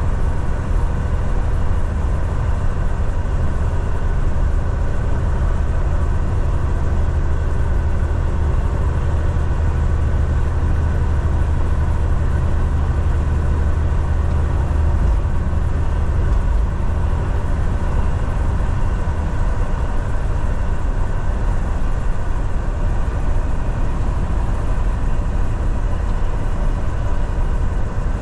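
Steady low drone of a semi truck's diesel engine and road noise heard from inside the cab while driving, unchanging throughout with no distinct events.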